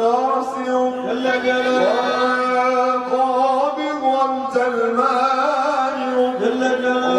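A man chanting an Islamic devotional qasida into a microphone, in one long melodic line of held notes that slide between pitches.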